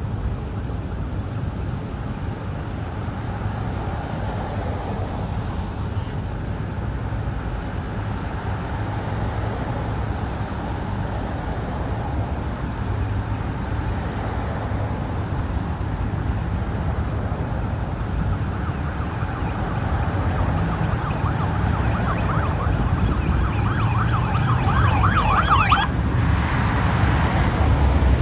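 Police sirens sounding from passing patrol cars over a steady rumble of engines and traffic. A fast warbling siren grows loud about three quarters of the way through and stops abruptly, and the engine rumble gets louder near the end as motorcycles pass.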